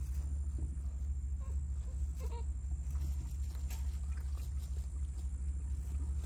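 A litter of American bully puppies eating together from one dish, with many small chewing and lapping clicks over a steady low rumble.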